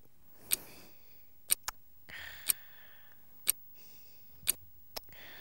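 Bedside alarm clock ticking, one sharp tick about every second.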